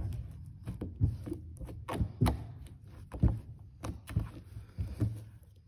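Homemade clear-glue slime being kneaded and pressed by hand against a tabletop, giving irregular soft thunks and sticky slaps, about one or two a second.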